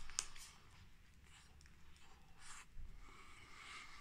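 Faint eating sounds from a Reese's Nutrageous bar (peanuts and caramel in a chocolate-flavoured coating): a couple of sharp clicks as it is bitten right at the start, then quiet chewing with a few soft crackles.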